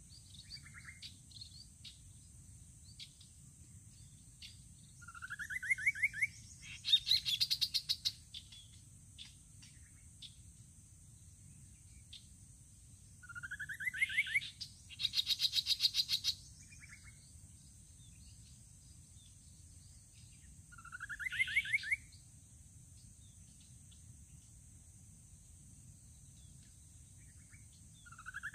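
Rufous-capped babbler calling: a short rising trill repeated about every seven or eight seconds, with a harsh rapid rattling chatter following the first two trills. A steady high-pitched hiss runs underneath.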